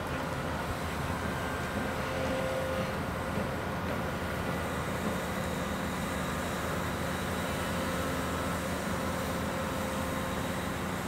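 Barge-mounted hydraulic excavator working a clamshell dredging bucket: its diesel engine and hydraulics run with a steady drone and a few faint whining tones.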